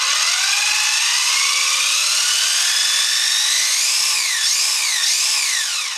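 Wltoys A959 Vortex 1/18 4WD buggy's electric motor and drivetrain whining with all four wheels spinning. The pitch climbs steadily as the throttle is opened, then rises and falls three times as the throttle is pumped, and cuts off just before the end.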